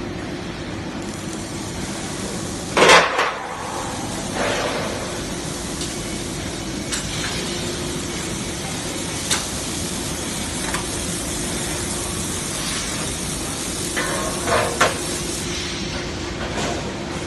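Beam welding machine running in a factory: a steady hissing machine noise over a constant hum, with occasional metallic clanks, the loudest about three seconds in and a pair near the end.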